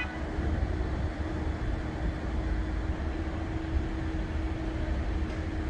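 Steady outdoor city background noise: a constant low rumble and hiss with a faint unchanging hum, and no distinct events.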